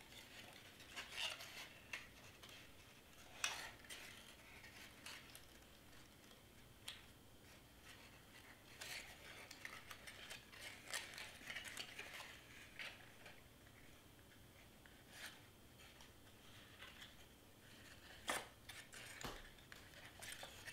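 Faint handling of stiff cardstock: scattered rustles, scrapes and light taps as folded paper panels are lined up and pressed into place, busiest in the middle stretch.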